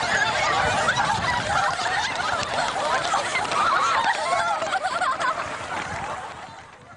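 A crowd of many high voices at once, overlapping and wavering, fading out near the end.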